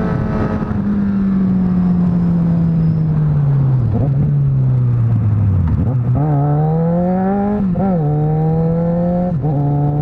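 Suzuki GSX650F inline-four engine from the rider's seat, with wind rushing past the microphone. The revs fall steadily for about five seconds as the bike slows, then climb as it accelerates away, with sharp dips at gear changes past the middle and near the end.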